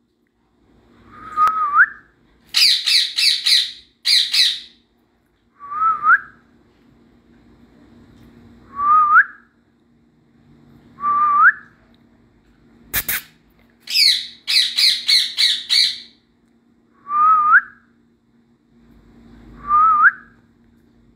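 Caged rose-ringed parakeet squawking in two rapid runs of four or five harsh calls, with short whistles that glide upward repeating every two or three seconds between them. There is a single sharp click near the middle.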